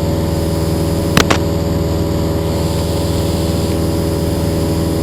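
Cessna 172N's Lycoming four-cylinder engine and propeller droning steadily in flight, heard from inside the cabin. Two short clicks come a little over a second in.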